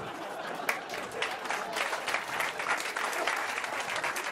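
Theatre audience applauding a joke: a dense, even patter of many hands clapping.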